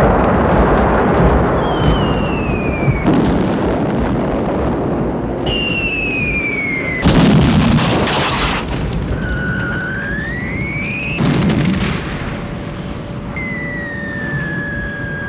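Bombs whistling down, the whistle falling in pitch before each explosion, over a continuous low rumble of a World War 2 air raid. There are four whistles, one of them rising, with blasts about 3, 7 and 11 seconds in. The last whistle is still sounding near the end.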